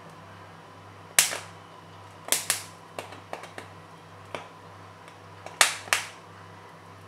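Sweet corn cob roasting directly over a gas burner flame, its kernels popping in sharp cracks at irregular intervals, about nine in all, the loudest about a second in and near the end, over a faint steady low hum.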